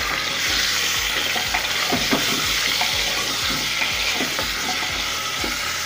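Mutton pieces sizzling as they brown in hot oil in an aluminium pressure cooker, stirred with a spatula, with scattered scrapes and knocks of the spatula against the pot.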